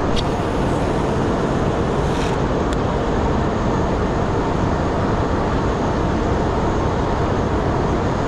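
Steady, unbroken noise of a boat's motor running.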